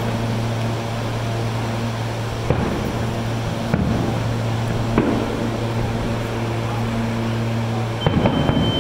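Distant fireworks going off, three sharp bangs about a second apart, over the steady low hum of a parked electric commuter train. Near the end the hum stops and a steady high-pitched tone begins.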